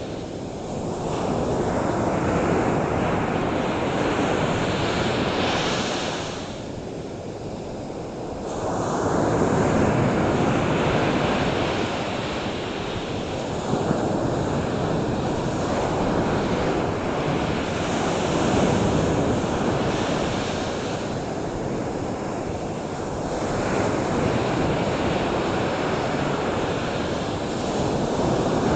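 Ocean surf washing in a continuous rush that swells and eases every several seconds, with quieter lulls between waves.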